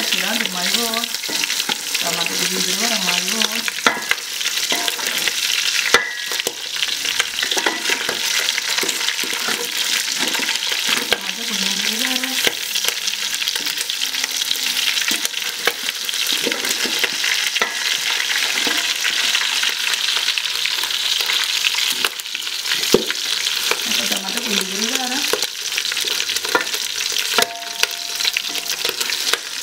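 Pieces of beef shank frying in an aluminium pot with a steady sizzle, stirred with a wooden spoon that scrapes and knocks against the metal in short clicks.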